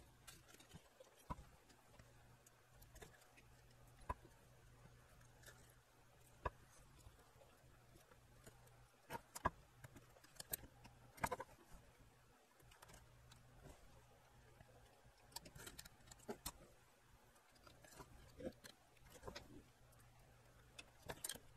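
Near silence: scattered light clicks and taps from hands handling a bare amplifier circuit board and its wiring, over a faint steady low hum. The clicks come thickest about halfway through and again a little later.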